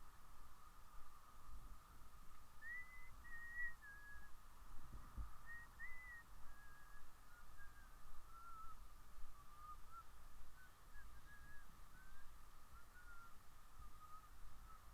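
A person whistling a slow tune softly, a string of short gliding notes that wander and drift downward, over a faint steady hum.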